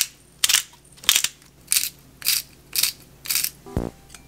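Pepper grinder being twisted over a bowl, grinding peppercorns in a steady run of about seven crunchy bursts, roughly two a second. Near the end, one clink of chopsticks against the glass bowl as the eggs start to be beaten.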